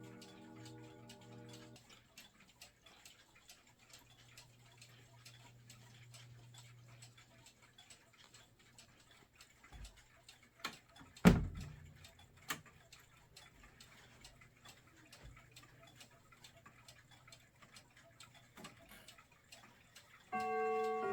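A mechanical chiming clock ticking steadily. The last notes of a chime die away at the start, there is a sharp knock about eleven seconds in and a lighter one a second later, and the chime starts playing again near the end.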